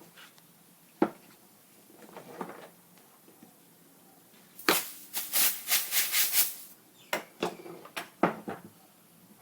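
Compressed-air blow gun hissing in a pulsing burst nearly two seconds long into a brake caliper's fluid port, forcing the stuck caliper pistons outward. Sharp clicks and knocks come before and after the burst, one about a second in and several more near the end.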